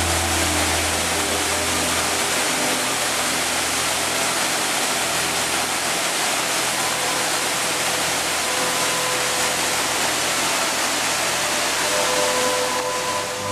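Steady rush of a large waterfall crashing into a rocky gorge, heard from close by. Faint music runs underneath.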